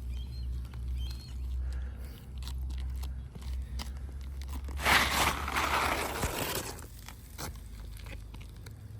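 Gritty crunching and scraping on an asphalt shingle roof, with scattered small clicks and one longer, louder scrape about five seconds in lasting nearly two seconds. A low rumble runs underneath.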